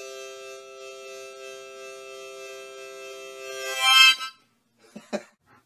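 A single musical chord of several notes held steady for almost four seconds, then breaking off into a short, louder cry, followed by a couple of faint clicks.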